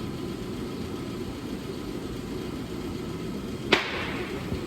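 A steady machine hum with a low even drone, and one sharp knock a little before the end.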